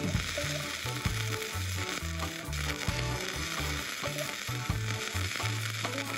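Flux-core wire welding arc on a Hobart Handler 140, sizzling steadily as self-shielded wire is fed into a steel T-joint, with small crackles of spatter.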